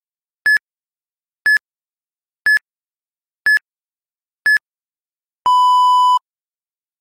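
Electronic interval-timer beeps: five short, high beeps one second apart, then one longer, lower beep, the countdown that signals the switch between a fast running minute and a recovery minute.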